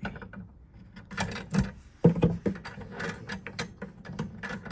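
Clicks, knocks and rubbing as a braided steel flexi hose and its brass fitting are handled and pushed into place inside a plastic cistern frame, with one sharp knock about two seconds in.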